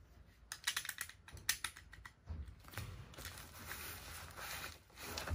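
A quick run of sharp clicks and taps, then rustling and crinkling of a parcel wrapped in black bubble-wrap plastic as it is picked up and handled.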